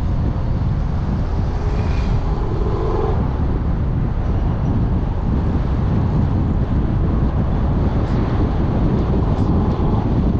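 Steady low rumble of a car driving: tyre, road and wind noise.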